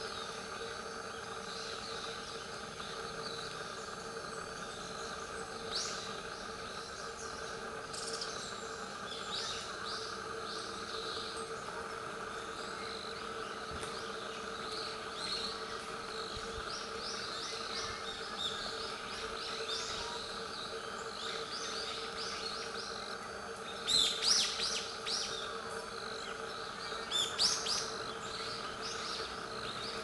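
Steady insect droning, with short high bird chirps scattered throughout and two louder bursts of chirps near the end.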